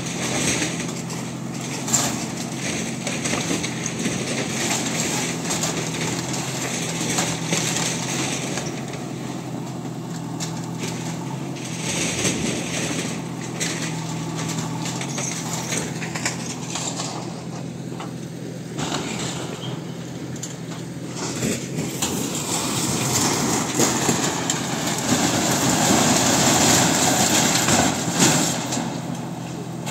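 Backhoe loader's diesel engine running while its arm crushes and pushes over a corrugated metal-sheet and timber shed, with crunching, scraping and clattering of the sheets and occasional sharp bangs. The crashing noise grows louder near the end.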